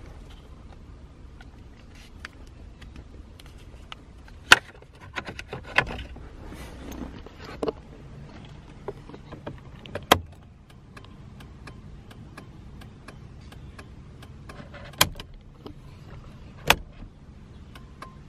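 Heavy-duty electromechanical EP37 turn-signal flasher clicking in a steady rhythm as the turn signals flash. A few much louder sharp clicks stand out among the ticks, from the flasher being plugged into its socket and the turn-signal lever being switched.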